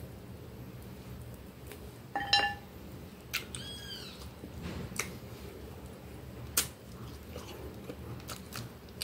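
Eating a grilled chicken wing by hand: chewing and nibbling with scattered small clicks and mouth smacks. Two short high-pitched calls cut in, one a little after two seconds in, the loudest sound, and one rising then falling about three and a half seconds in.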